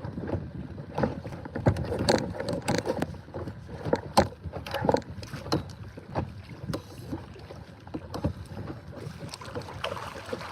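Irregular clicks and knocks of gear being handled on a fishing kayak during a fight with a hooked fish, over a steady outdoor noise.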